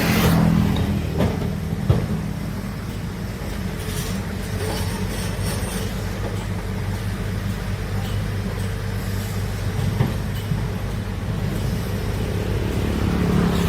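Heavy excavator's engine running steadily with a deep hum. Sharp knocks come about two seconds in and again about ten seconds in.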